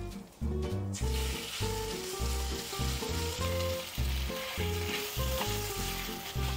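Marinated shredded pork sizzling in hot oil in a cast-iron wok, starting suddenly about a second in, stirred and pushed around with a spatula. Background music with a steady beat plays underneath.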